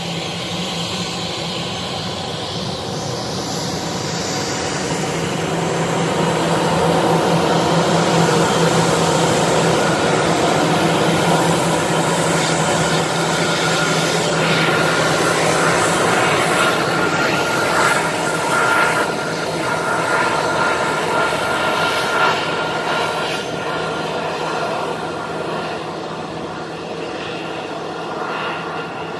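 Jet airliner's turbofan engines, an Airbus A320-family narrowbody on the ground: a steady rushing noise with a low hum and a thin high whine. It grows louder over the first several seconds and eases off near the end.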